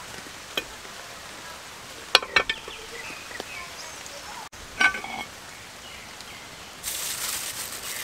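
A metal griddle pan being handled and set down on a camp stove: a few metallic clinks and knocks, the loudest about two seconds in and a short ringing clink near five seconds, over a steady hiss of rain. Near the end a plastic bag rustles.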